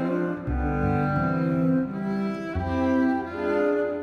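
Background music of bowed strings: sustained cello notes over a double bass line, the notes changing about once a second.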